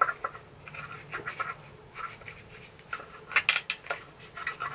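Scratchy rubbing and light metallic clicks as a Honda VT700 clutch master cylinder is handled and cleaned in gloved hands, a shop rag worked around inside its bore. The busiest group of scrapes and clicks comes about three and a half seconds in.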